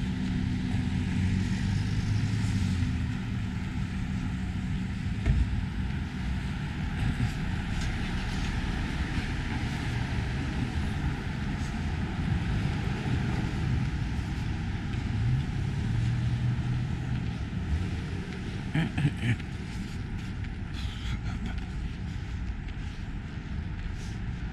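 City street traffic: a steady wash of road noise with a vehicle engine humming past near the start and again about two-thirds of the way through, plus a few short taps.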